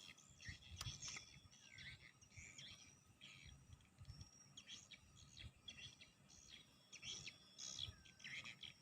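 Faint birds chirping: many short calls, some sliding in pitch, over soft low bumps of handling noise.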